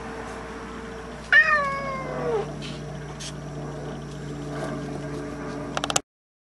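A domestic cat's single loud meow about a second in, starting high and sliding down in pitch over about a second, over a faint steady hum. The sound cuts off suddenly near the end.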